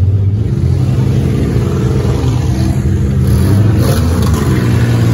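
Demolition derby minivans' engines running loud and steady, one revving up and back down about four seconds in.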